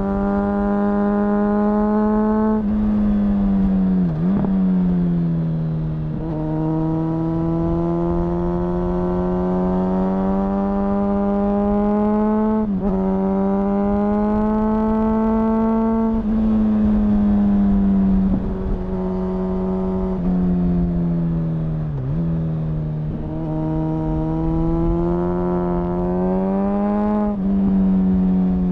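Honda CBR1000RR Fireblade's 998 cc inline-four, restricted to 35 kW, heard from on the bike under hard riding. The engine note climbs slowly and steadily, then drops sharply several times at gear changes and throttle roll-offs, and falls away near the end. A low rush of wind and road noise runs underneath.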